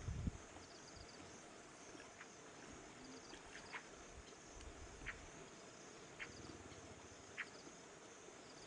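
Faint wild ambience of insects chirring steadily, with short high chirps every second or so and a brief low thump right at the start.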